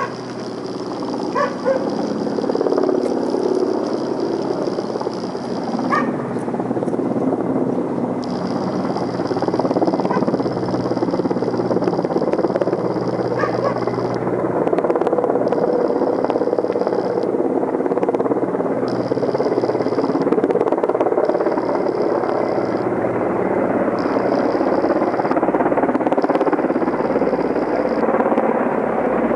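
Helicopters flying over, a steady rotor and engine noise that grows slightly louder. A dog barks a few times in the first half.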